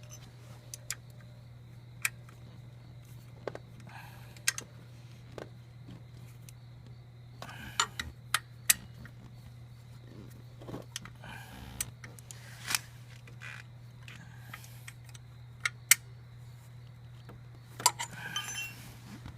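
Hand wrench tightening the bolts of a scooter's radiator backing plate: scattered sharp metallic clicks and clinks of the tool on bolt heads and metal, some in small clusters, over a steady low hum.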